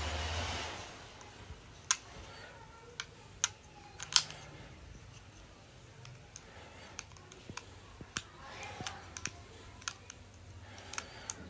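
A brief rustle, then a dozen or so irregular sharp clicks and taps from handling small plastic items: the wireless earbuds and their charging case.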